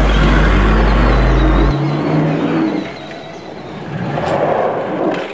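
Car engine sound revving, its pitch rising over a steady low hum that stops abruptly just under two seconds in. The engine sound dies away about three seconds in, and a rougher swell of noise follows around four to five seconds in.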